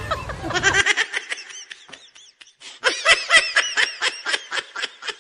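Laughter: a rapid run of short, evenly repeated laughing bursts, a brief pause about two seconds in, then another run of laughing.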